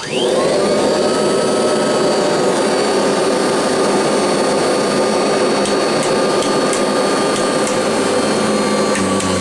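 Kirby Heritage upright vacuum cleaner switched on: the motor spins up within a fraction of a second, then runs loud and steady with a high whine over a dense rushing airflow. A lower hum joins near the end.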